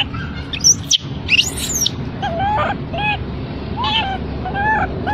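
Infant long-tailed macaque crying: two shrill screams that sweep up and down about a second in, then a run of short, arched whimpering coos, about one every half second.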